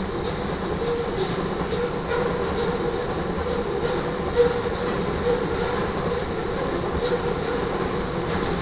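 Tank cars of a crude oil train rolling steadily past, with a continuous noise of steel wheels on the rails.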